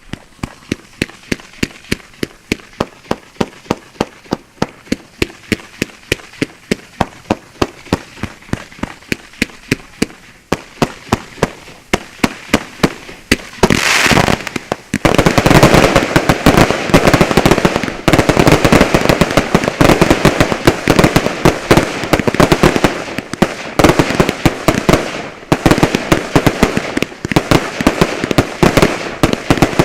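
Fireworks finale: a steady string of sharp bangs, about three a second, then about halfway through a loud hissing burst opens into a dense, louder barrage of bangs and crackle.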